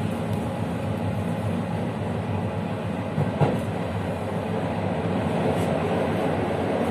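Passenger train running along the track, heard from on board at the rear: a steady rumble of wheels on rails, with a single sharp knock about halfway through.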